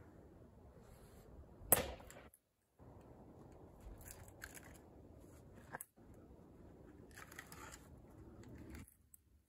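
An axe strikes a log on a chopping block once, a sharp crack about two seconds in. It is followed by a few lighter wooden knocks and a short rustle as split wood is handled and a new round is set on the block.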